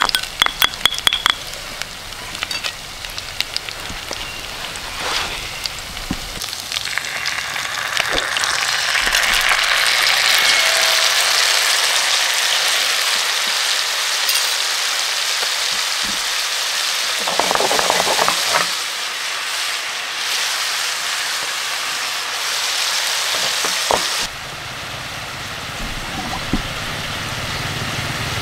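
Mackerel and chili sauce frying in hot oil in a pan, sizzling loudly from about seven seconds in, with the sizzle dropping near the end. A few sharp clicks of a spoon in a stone mortar come first.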